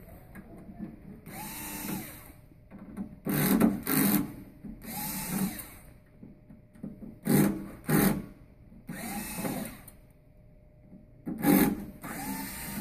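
Hitachi cordless drill-driver backing out screws from a stainless steel casing in four short runs, its motor whine rising and falling each time. Sharp knocks and clatter come between the runs.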